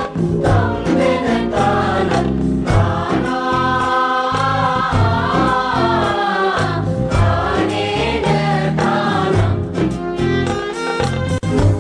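Music: a chorus of voices singing a song, accompanied by drum strokes.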